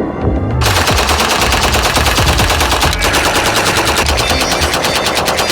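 Toy Uzi gun's electronic sound effect of automatic fire: a fast, continuous rattle of shots starting about half a second in.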